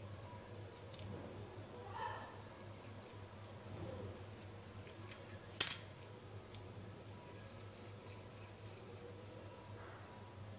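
Crickets chirping in a steady, fast-pulsing high trill, with one sharp clink about five and a half seconds in.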